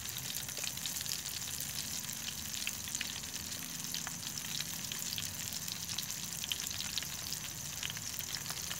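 Boga fish fillet frying in oil in a stainless-steel mess-kit pan: a steady sizzle with many small crackles and pops.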